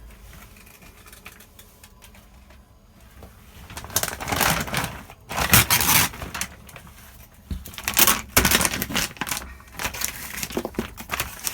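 Damp plywood wallboard being torn and broken away by hand: irregular crackling, cracking and splintering bursts, starting about four seconds in after a quieter start.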